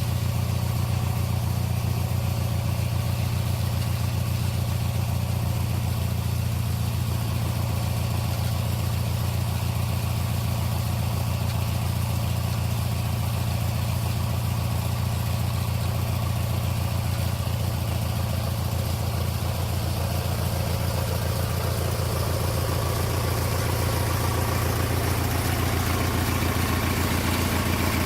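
Small engine from an old Snapper lawn mower running steadily, powering a homemade sawmill. From about three-quarters of the way through, a fuller, busier sound fills in above the engine's low note.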